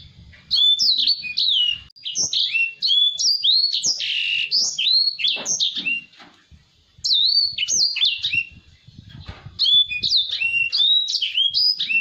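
A caged edel sanger (white-rumped seedeater, grey singing finch) singing a fast, unbroken run of short high sweeping notes, breaking off for about a second near the middle before starting up again.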